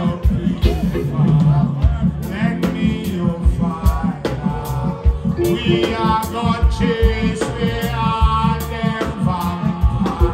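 Live reggae band playing, with a male vocalist singing into a microphone over bass, drums and electric guitar.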